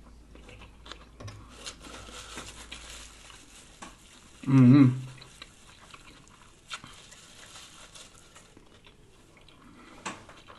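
A person chewing a lettuce-wrapped sub sandwich, with faint scattered wet mouth clicks and crackles. About four and a half seconds in comes one short, loud voiced "mmm".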